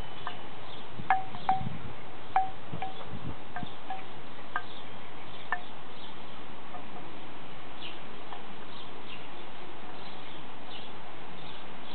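Wooden wind chime knocking in the breeze: about eight strikes over the first five or six seconds, each ringing briefly at the same pitch, then only a few faint ones.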